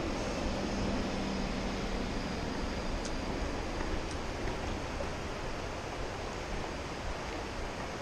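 Steady rush of a shallow mountain stream running over rocks.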